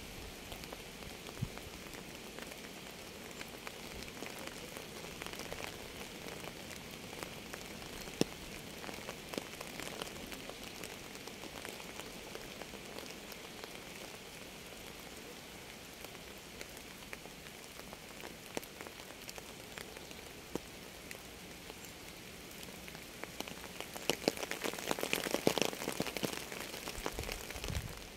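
Steady rain falling on a surface, with scattered drops ticking. It grows heavier and louder for a few seconds near the end.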